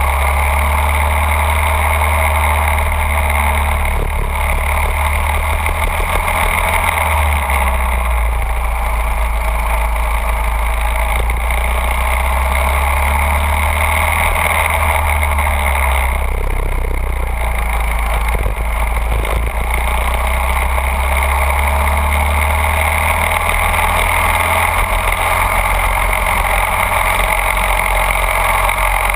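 Go-kart engine running steadily at speed, a continuous drone that holds much the same pitch throughout.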